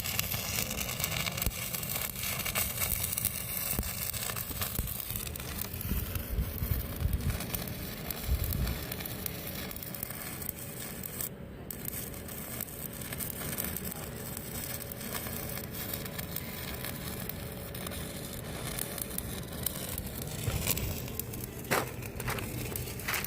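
Stick (arc) welding on a 10-inch steel pipe: the arc crackles and sizzles steadily.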